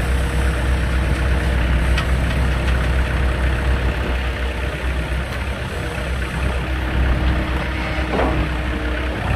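Diesel engine running steadily, driving the hydraulic pump of a log splitter, with a faint steady whine over the low rumble and one sharp click about two seconds in.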